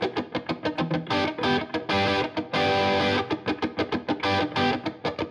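Intro music led by a guitar: quick, evenly repeated picked notes, with a couple of longer held chords near the middle.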